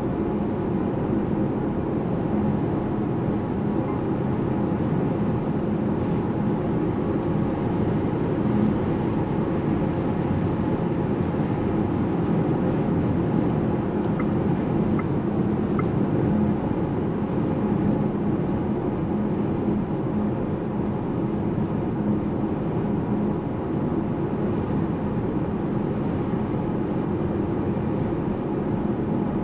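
Steady road and tyre noise heard from inside a Volkswagen ID.7 electric car while driving, with a low steady hum underneath and no engine sound.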